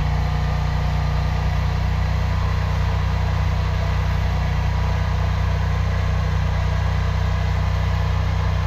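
High-pressure drain jetter's engine running steadily at a constant speed, a low even drone with a hiss over it.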